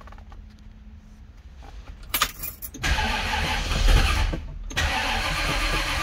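1967 Mercury Cougar's V8 started in park with its neutral safety switch disconnected and bypassed by a jumper wire: it cranks about three seconds in, catches easily and settles into steady running.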